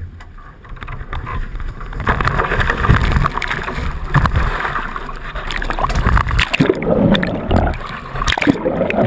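Water rushing, gurgling and splashing along the hulls of a Hobie 16 catamaran under sail, with irregular slaps and knocks from the spray.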